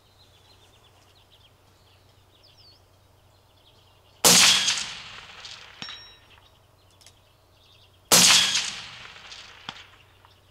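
Two rifle shots from an AR-platform special purpose rifle, about four seconds in and again about four seconds later. Each is followed about a second and a half later by a faint ping: the bullet striking a steel target 400 yards away, the first hit on a steel popper.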